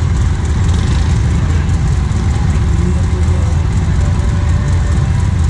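ATV engine idling steadily, a low, even rumble with no revving, with faint distant voices.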